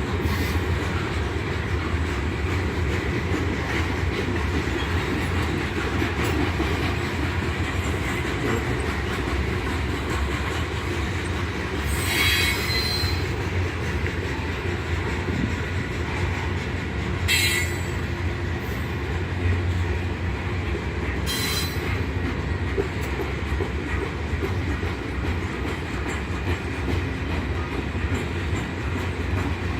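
Freight train of hopper cars rolling past with a steady rumble of wheels on rail. Brief high wheel squeals sound three times, about 12, 17 and 21 seconds in.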